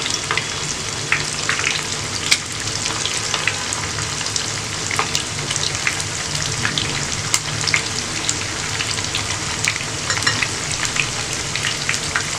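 Masala-marinated chicken wings deep-frying in hot oil: a steady sizzle with scattered pops and crackles.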